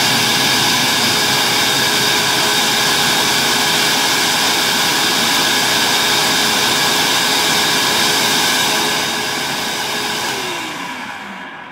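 Electric countertop blender running steadily, churning a liquid mix of apple, lemon and water. Near the end it is switched off and the motor winds down with a falling whine.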